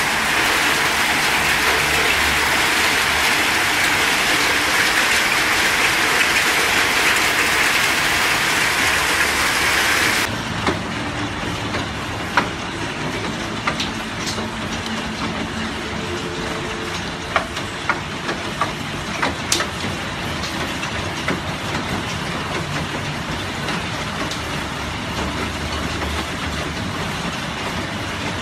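Hailstorm: hail and rain falling hard in a dense, steady roar, then, after an abrupt change about ten seconds in, a quieter hiss with scattered sharp clicks of individual hailstones hitting.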